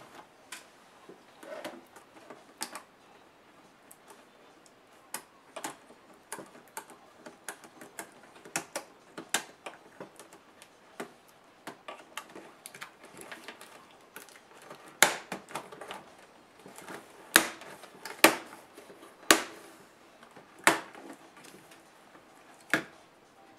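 Irregular sharp clicks and snaps of plastic clips releasing as a plastic pry tool works an HP DV7 laptop's keyboard loose from its case. A run of louder snaps comes in the last third.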